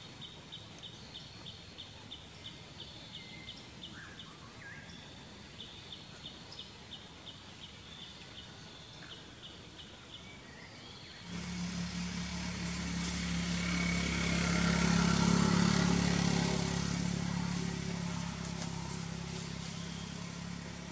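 Faint high rhythmic chirping, about four pulses a second. About halfway, a motor vehicle engine comes in suddenly with a steady low hum, grows to its loudest a few seconds later, then slowly fades as if passing by.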